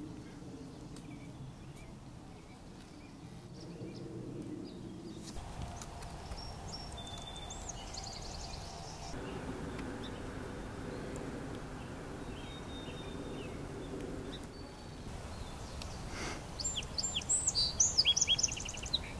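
A song sparrow sings near the end, a quick run of sweeping high notes that is the loudest sound here. Earlier there are only a steady low outdoor background and a few faint chirps from other birds.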